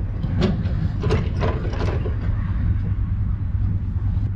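Boat trailer's tongue jack being hand-cranked while hooking the trailer to a pickup's hitch, its gears clicking in a short uneven run of strokes during the first two seconds. A steady low rumble runs underneath.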